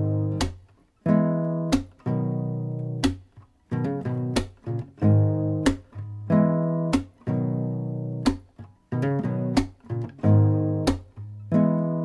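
Closing theme music: strummed acoustic guitar chords, with a sharp percussive stroke about every second and a quarter, each followed by a held chord.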